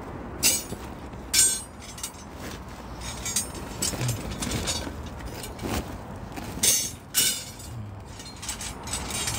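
Bent steel rebar offcuts being handled in a woven polypropylene bulk bag: a handful of sharp clinks and rustles, the loudest about half a second in, near a second and a half, and twice around seven seconds.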